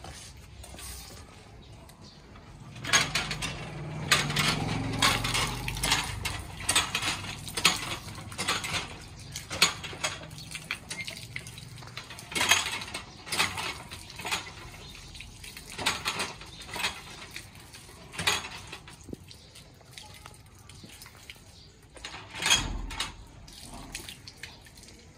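Iron hand pump being worked, water gushing from the spout and splashing onto feet and wet concrete, with a sharp clank of the pump about once a second starting a few seconds in.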